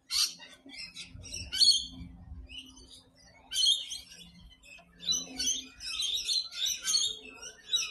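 Many small birds chirping and twittering together in quick, overlapping high calls, busiest in the second half.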